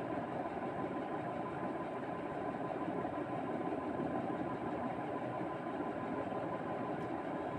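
Steady, unchanging background hum with a faint high tone running through it, like a motor or fan running; no sneeze.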